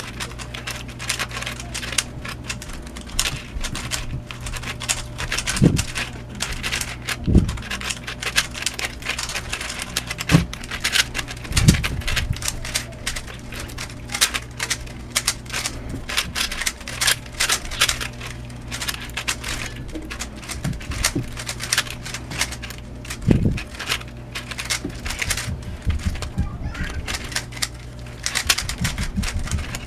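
Rubik's cube being turned fast in the hands: rapid, irregular plastic clicking and rattling of the layers, with a few louder knocks, over a steady low hum.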